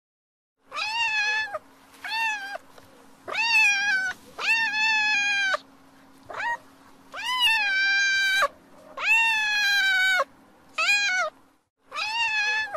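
Domestic cat meowing repeatedly: about eight meows, some short and some long and drawn out, with a faint steady hum beneath.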